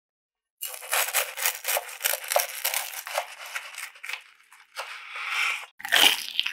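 A knife saws through a crisp toasted bread sandwich, its crust crackling and crunching in a rapid run of crisp snaps. It ends in a short scraping stretch and then a heavier thump near the end, the loudest sound.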